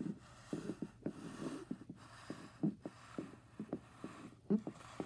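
Light, irregular taps and knocks, like plastic toy horse figures being hopped along a wooden floor to act out hoofbeats, a few each second with a stronger pair about four and a half seconds in.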